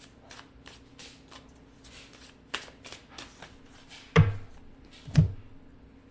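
A tarot deck being shuffled by hand, with a run of light card flicks and taps. About four and five seconds in come two louder, dull thumps of the cards against the tabletop.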